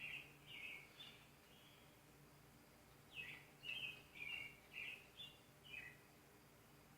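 A small bird singing faintly: a few short, high chirping notes at the start, then a quick run of about seven more from about three seconds in.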